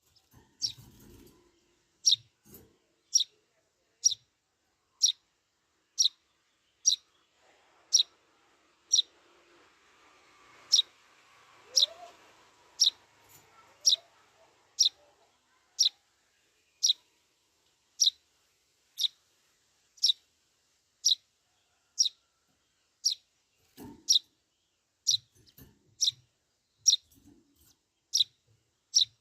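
A young Eurasian tree sparrow begging for food, giving one short, sharp, high chirp about once a second, over and over at a steady rate.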